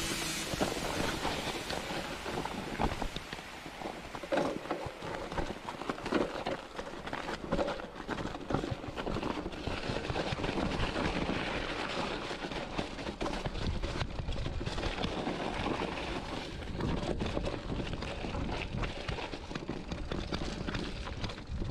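Specialized Rockhopper hardtail mountain bike riding a snowy, rocky singletrack: tyres crunching over snow and stones, with a constant patter of small knocks and rattles from the bike over the bumps.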